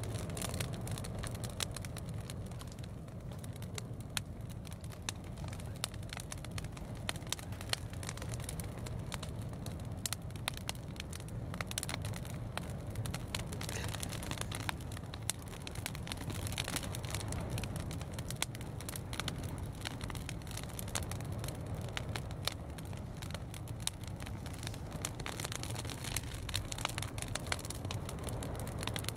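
Fire crackling in the kiln: many irregular sharp cracks throughout, over a steady low rumble.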